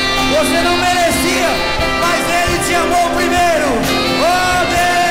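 A man singing a gospel hymn into a microphone over instrumental accompaniment. He sings in long held phrases that slide up at the start and fall away at the end.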